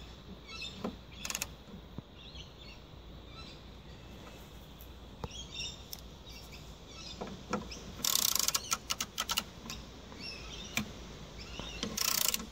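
Birds chirping intermittently in the background, with a spell of rapid metallic clicking and rattling from hand tools about two-thirds of the way through and again near the end.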